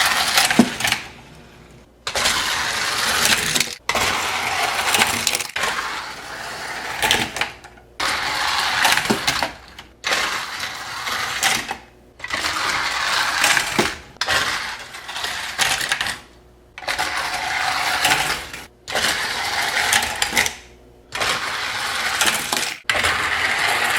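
Plastic toy race-track set with a hand-cranked handle, its toy cars rattling and clattering along the plastic track. The sound comes in a string of bursts about two seconds long, with short pauses between them.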